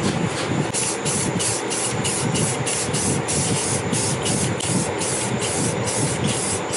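Aerosol can of clear coat hissing as it sprays, starting about a second in and broken into quick pulses about four times a second.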